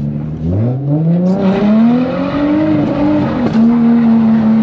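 Nissan 350Z's 3.5-litre V6 with test pipes and a single-exit exhaust revving up hard from low revs about half a second in, climbing for about two seconds, dipping briefly, then held at high revs for a slide on a wet road. A hiss joins about a second in, the tyres spinning on the wet pavement.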